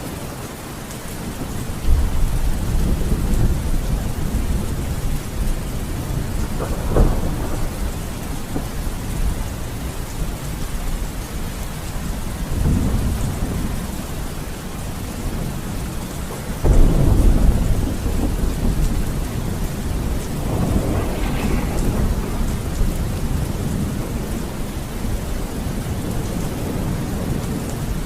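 Steady heavy rain with rolling thunder: several low rumbles swell and fade. The loudest breaks in suddenly about two-thirds of the way through.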